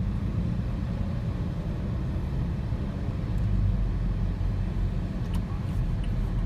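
Steady low rumble of a vehicle in motion, like road noise heard inside a car.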